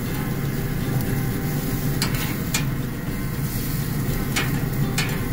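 Chicken and vegetable skewers sizzling as they sear on the hot grates of an Oklahoma Joe's Rider DLX pellet grill, over a steady low hum from the grill's fan. A few sharp clicks come at intervals.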